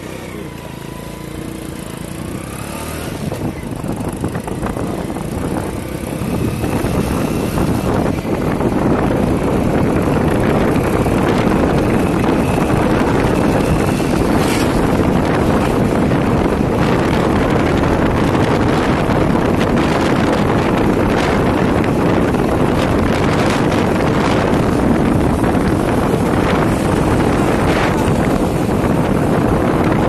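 Motorcycles running along a road at speed, engine noise mixed with wind rushing over the microphone. It grows louder over the first several seconds, then holds steady.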